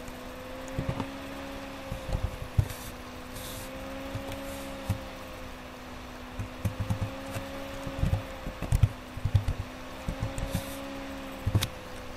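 Typing on a computer keyboard: irregular clusters of dull taps, with a firmer keystroke near the end as the search is entered, over a steady machine hum.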